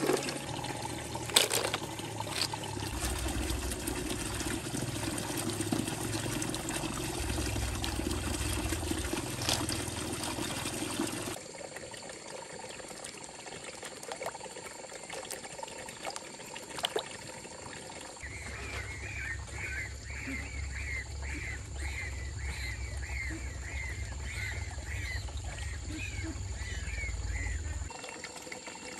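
Water trickling and splashing in a shallow stream-fed pool, louder for the first eleven seconds with a few sharp splashes. A quieter trickle follows, with a short high call repeated about once or twice a second through the second half.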